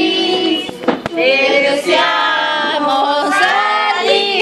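A family group singing a birthday song together, women's voices to the fore, with a few sharp handclaps about a second in.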